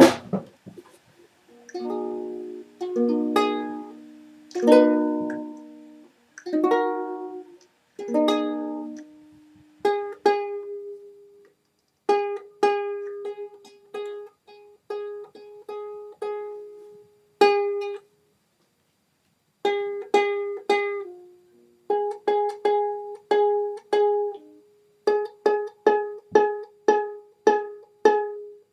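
Ukulele played by hand: a few strummed chords at first, then a single-note tune plucked note by note, many notes repeated on the same pitch, with a short break about two-thirds of the way through.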